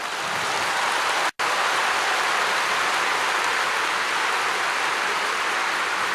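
Large stadium crowd applauding, a dense steady wash of clapping that swells in the first second and then holds. The sound drops out completely for an instant about a second in.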